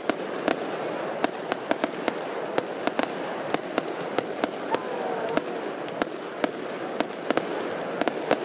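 Fireworks display: a quick, irregular string of sharp bangs and pops from small aerial shells bursting, about two to three a second, over a steady background hiss.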